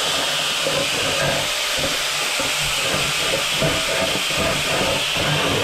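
Angle grinder cutting into the face of a hard tile: a steady, loud grinding hiss as the blade works the surface.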